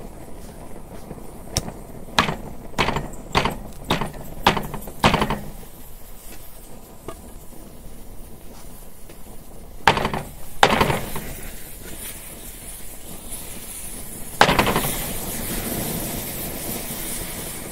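A wooden board knocking on a wooden jig: about eight sharp knocks in quick succession, then two louder ones about ten seconds in. Near the end a steady hiss starts, the punctured, burning aerosol can venting its propellant.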